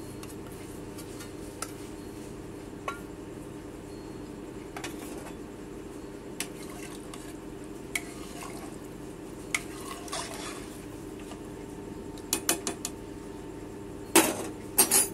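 Steel ladle stirring rice and water in an open pressure cooker, with scattered clinks and scrapes of metal on metal, then a few loud clanks against the pot near the end. A steady low hum runs underneath.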